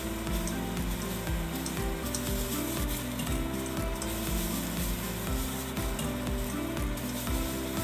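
Egg noodles and vegetables sizzling as they are stir-fried in a hot wok and tossed with chopsticks, with background music playing.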